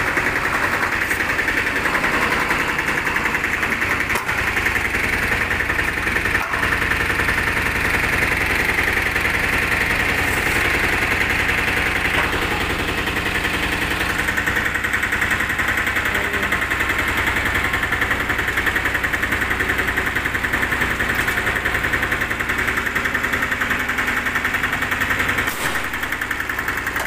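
Piaggio Ape Auto DX's single-cylinder 400cc direct-injection diesel engine idling steadily, a very noisy diesel clatter.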